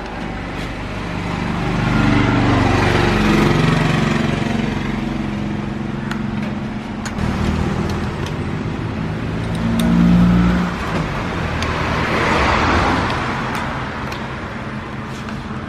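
Motor vehicle engines running, the sound swelling and fading twice as if vehicles pass by, with a few light clicks.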